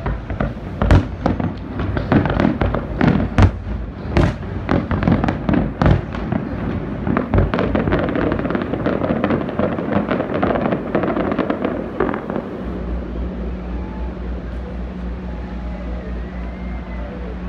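Fireworks going off: a rapid series of sharp bangs, then dense crackling that dies away about twelve seconds in. A steady low hum follows.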